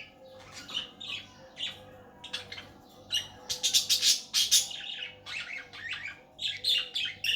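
Budgerigar chattering and squawking: a fast, continuous run of short chirps and harsh calls, densest and loudest around the middle.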